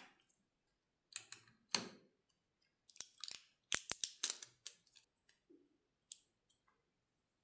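Computer parts handled by hand during a PC build: scattered sharp clicks and short rustling scrapes, thickest from about three to five seconds in.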